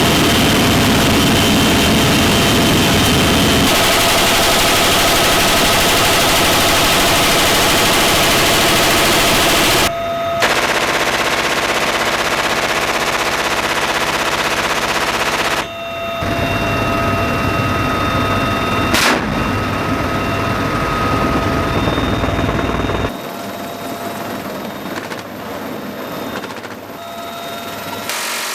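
M134 minigun firing long continuous bursts, its shots coming too fast to separate. The sound is several stretches joined by abrupt cuts, with a single sharp crack about 19 seconds in, and it is quieter from about 23 seconds on.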